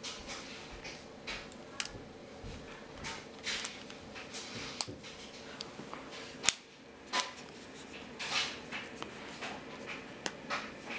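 Scattered small clicks, taps and brief rustles as an iPhone 4 is handled and fitted into a hard plastic case with a fabric back.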